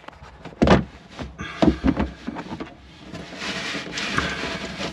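Handling noise inside a small fibreglass boat's bow compartment: the camera and an arm knock and rub against the hull. There is a sharp knock just under a second in, a few more soon after, then a longer scuffing stretch past the three-second mark.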